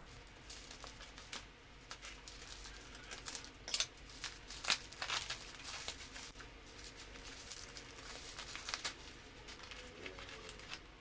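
Bubble-wrap packaging crinkling and tearing as a parcel is unwrapped by hand, in irregular crackles.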